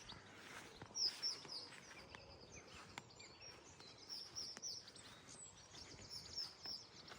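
Small birds singing: quick strings of high chirps over a faint outdoor background.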